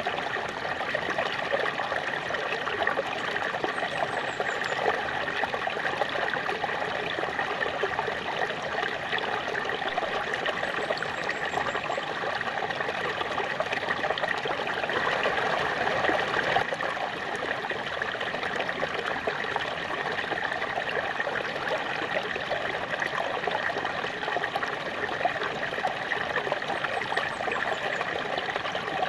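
A small waterfall splashing and rushing steadily, an even wash of falling water with a bubbling, trickling texture.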